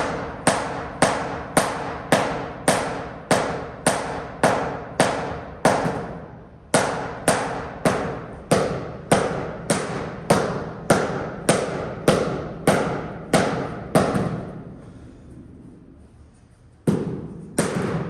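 Mallet striking over and over, about two blows a second, each with a short ring. The blows pause briefly about six seconds in, stop for a few seconds after fourteen, and start again near the end. Typical of tapping a large-format floor tile down to bed it in the adhesive.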